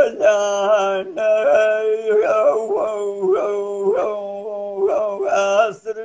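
A man singing Kurdish hore unaccompanied, heard over a video call: long held notes with wavering ornaments and bending glides, broken by short pauses for breath.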